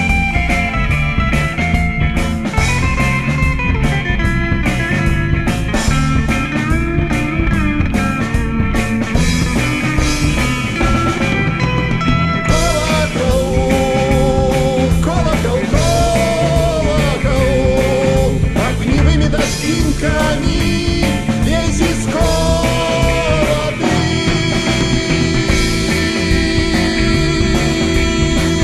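Instrumental passage of a rock song played by a band of electric guitars, bass and drum kit with a steady beat. Through the middle a lead line of bending, wavering notes rides over the band.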